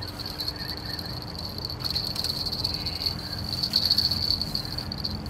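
An insect in the grass stridulating: a steady, finely pulsing high buzz that fades out near the end. A few sudden, louder knocks sound over it, fitting a small landed fish flapping on the grass.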